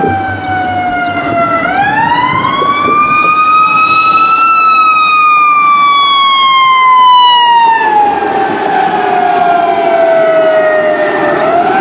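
Fire engine's eQ2B siren wailing: its tone winds up over about three seconds, then slowly winds down for about seven seconds, and starts rising again near the end.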